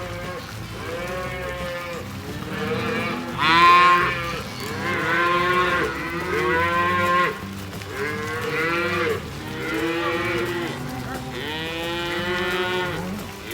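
A herd of cattle mooing, one call after another with several overlapping, the loudest a little over three seconds in.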